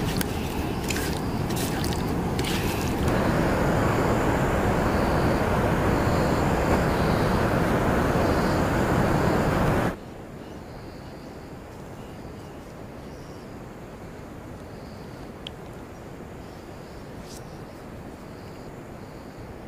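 Hands working spice paste into raw fish pieces on a metal plate, with small wet clicks and squelches. This gives way to a loud steady rushing noise that cuts off abruptly about halfway through, leaving a quiet outdoor ambience with faint high chirps about once a second.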